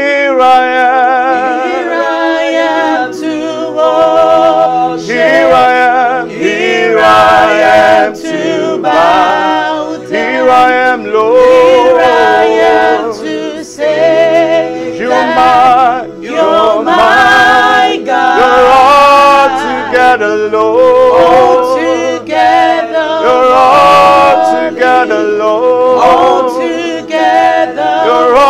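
Men's and a woman's voices singing a slow gospel worship melody together with heavy vibrato, phrase after phrase, over held electric keyboard chords.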